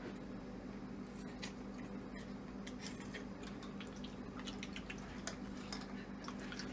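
Faint small wet clicks and smacks of someone eating noodles, over a steady low hum.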